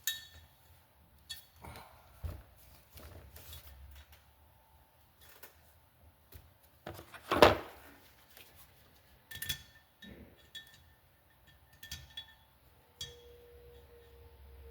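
Metal tools and cylinder-head valve-train parts clinking and knocking on a workbench in a string of scattered knocks, the loudest a single clank about halfway through. A faint steady tone sounds near the end.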